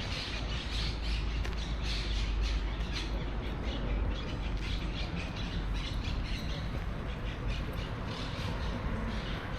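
Large birds in the park trees squawking over and over in short, harsh calls, over a steady low rumble.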